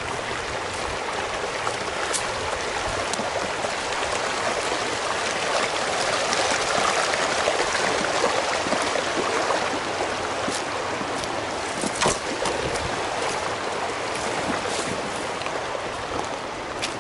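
Rocky trout stream rushing over riffles and small rapids, a steady wash of water that swells a little midway. A few sharp clicks stand out over it, the strongest about twelve seconds in.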